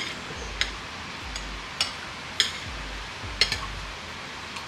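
A handful of sharp, irregular clicks and taps, about one every half second to second, over a steady hiss and a faint low pulsing beat.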